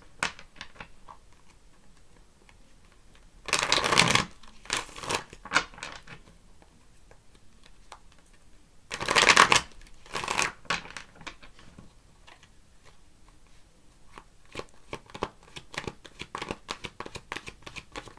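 A deck of tarot cards being shuffled by hand: a few loud brushing bursts of the cards, loudest about four and nine seconds in, then quick light flicks of the cards near the end.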